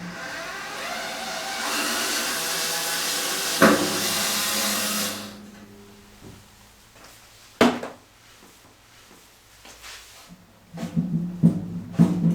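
An electric power tool's motor running with a steady whine for about five seconds, then stopping; a sharp knock follows, and several knocks near the end.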